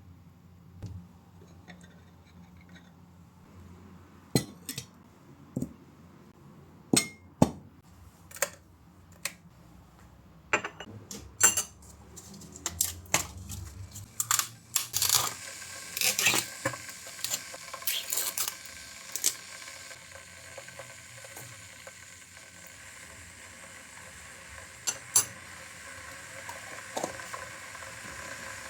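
Small hard objects being handled: a scattered run of sharp clicks, knocks and clinks, with a steady hiss coming in about halfway through.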